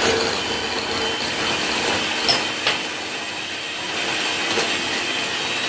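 Electric hand mixer running steadily at speed, its beaters whipping egg whites in a glass bowl while sugar is added.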